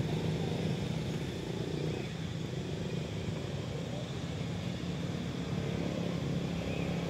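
An engine running steadily nearby: a continuous low hum that holds the same pitch and level throughout.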